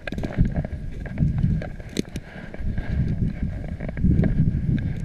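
Footsteps tramping along a muddy dirt track, a few steps a second, with wind buffeting the microphone.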